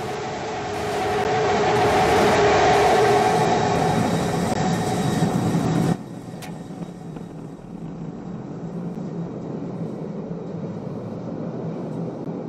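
Rocket engine roar from Starship SN15's methane-fuelled Raptor engines during the landing burn: a steady, heavy rumble that swells about a second in, then cuts off suddenly about six seconds in at touchdown, leaving a quieter steady rumble.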